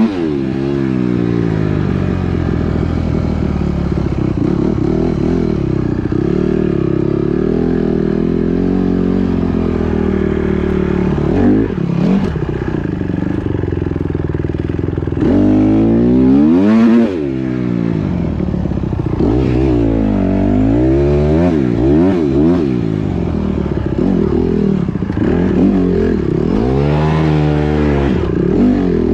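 Four-stroke dirt bike engines running and revving, their pitch repeatedly rising and falling as the riders open and close the throttle and shift, loudest around the middle of the stretch.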